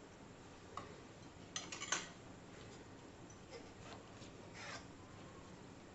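Faint clinks and taps of steel kitchenware being handled on a countertop: a steel spoon in a steel bowl and bowls being set down, with a small cluster of sharper clinks about two seconds in and lighter taps later.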